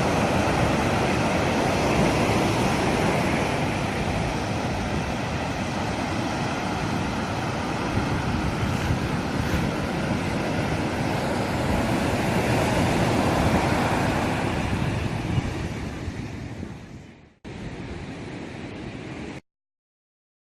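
Steady rushing noise with no clear pitch, fading out about seventeen seconds in, then a short quieter hiss that cuts off suddenly into silence.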